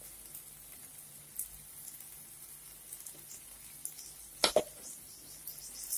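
Thick halwa sizzling faintly in a hot iron kadai, with a faint steady low hum, a few light clicks, and one short sharp knock about four and a half seconds in.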